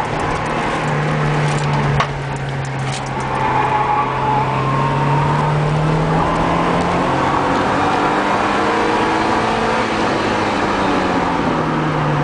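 Porsche 944S's four-cylinder engine heard from inside the cabin, pulling steadily around the track. Its pitch climbs slowly and then drops near the end as the driver eases off. A sharp click comes about two seconds in.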